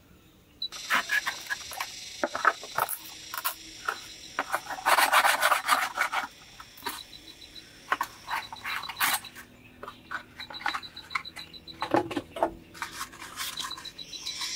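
A knife blade scraping a curled strip of dry bark: irregular rasping strokes and light clicks, densest about five to six seconds in. Crickets chirp in short pulses behind it.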